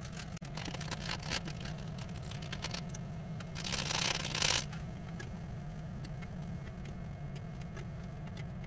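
Saucepan of instant ramen noodles simmering on a gas burner, with small crackles and bubbling over a steady low rumble. About three and a half seconds in, a dry rustle lasting about a second as the soup powder is shaken out of its packet into the pot.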